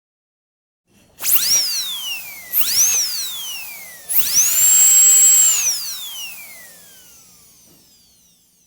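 Dentist's drill whining at a high pitch: two short runs that spin up and quickly wind down, then a third that spins up, holds steady for a moment and winds down slowly.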